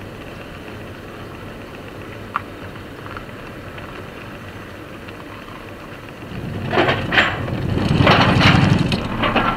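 Car driving slowly with a steady low engine and road hum. From about six and a half seconds in, a louder rumbling, crackling stretch with many small clicks lasts about three seconds.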